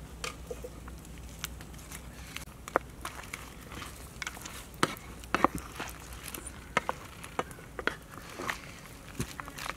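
A pan of shrimp curry simmering over a wood fire, with irregular small pops and clicks and a few sharper ones around the middle.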